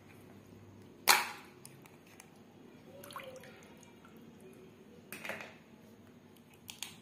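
Hands washing a crab in a plastic tub of water: water splashing and dripping, with two sudden splashes, the louder about a second in and another about five seconds in.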